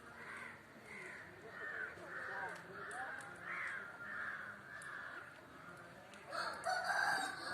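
Flock of birds calling over and over in short squawks, with a louder burst of calls about six and a half seconds in.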